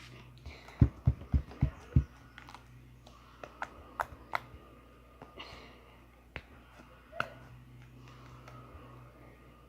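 A quick run of five knocks, about four a second, then scattered light clicks and taps from handling objects on a table.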